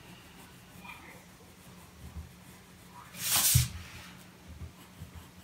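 Faint pencil strokes on paper, with one louder short rush of noise a little after three seconds in.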